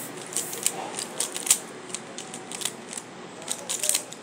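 Plastic 3x3 puzzle cube being turned by hand: an irregular run of sharp clicks and clacks, several a second, as its layers snap round.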